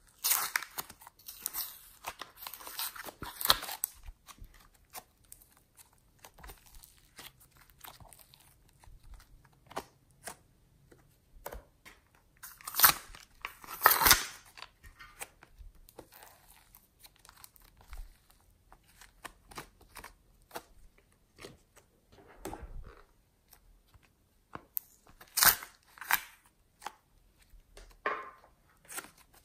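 Slime and soft clay squished, pulled and scraped out of a plastic container by hand: bunches of sticky clicks and crackles with quiet gaps between, the loudest bunches about halfway through and again near the end.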